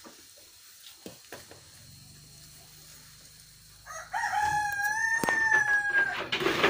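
Faint rustling of hands mixing chopped grass and bran in a basin, then about four seconds in a rooster crows once, one long held call of about two seconds that dips at the end.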